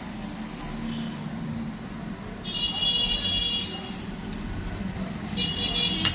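Steady traffic rumble with two high-pitched horn toots, the first about two and a half seconds in and lasting about a second, the second shorter near the end.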